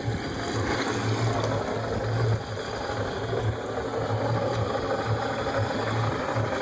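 2005 Yamaha F250 V6 four-stroke outboard idling with a steady, pulsing throaty sound that is new to this motor. The owner later traced the trouble to a failed lower unit.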